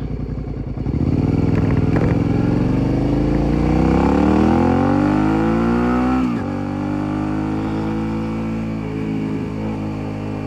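Motorcycle engine and exhaust picked up from the pillion seat, close to the exhaust. The bike accelerates, its note climbing steadily for about five seconds. About six seconds in the pitch and level drop abruptly, and it then runs steady at a lower note.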